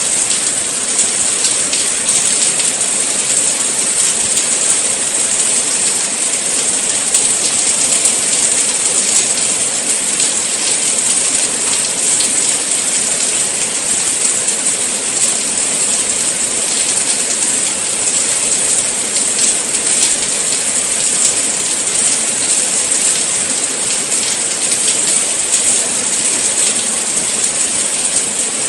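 Steady rain falling: an even hiss, strongest in the high range, made of many fine drop ticks.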